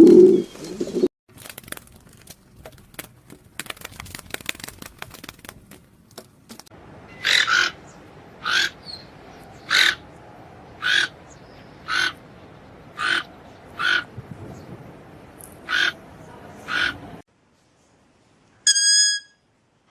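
A bird giving about ten short, sharp calls, roughly one a second, after a low coo-like sound that cuts off about a second in and some faint scattered clicks. Near the end comes a short pitched tone, after a brief silence.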